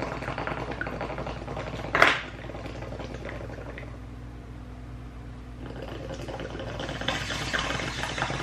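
Water in an acrylic gas-mask bong bubbling as smoke is pulled through it, a rapid gurgle. A sharp click comes about two seconds in. The bubbling eases, then picks up again near the end.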